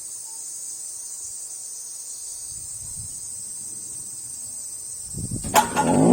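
Steady high-pitched insect chorus. Near the end a click, and an electric motor siren sounding the time signal starts winding up, its tone rising steeply.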